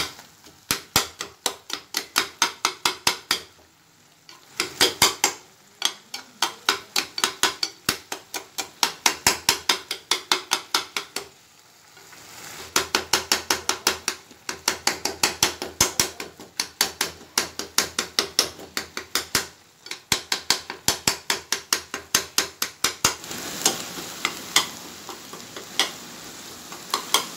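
Metal spatula striking and stirring minced beef and vegetables in a frying pan, the rhythmic taka-tak chopping the dish is named for: runs of sharp clacks, about three or four a second, with short pauses, over a steady sizzle.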